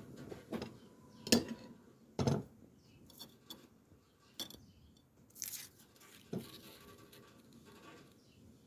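Scattered light metal clinks and knocks, about six spread over several seconds, from tools and the blade being handled. A short hiss about five and a half seconds in.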